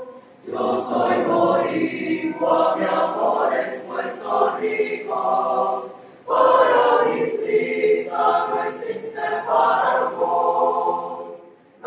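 Choir singing in long phrases, with short breaks about half a second in and about six seconds in.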